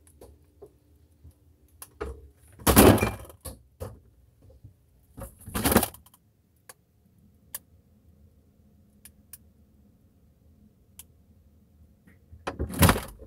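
Refrigerator door being handled: clinking and rattling from jars and bottles in the door shelf, then the door swung shut with a loud bang about six seconds in. Faint muffled ticks and a low hum are heard from inside the closed fridge, and near the end the door is pulled open again with another loud knock and rattle.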